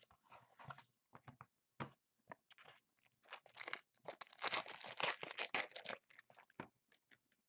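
Trading-card pack wrapper being torn open and crinkled by hand, with scattered crackles at first and a dense run of crinkling about three to six seconds in.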